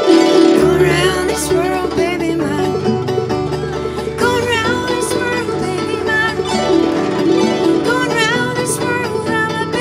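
Banjo and guzheng playing a plucked duet, with a woman's voice singing over them in several phrases.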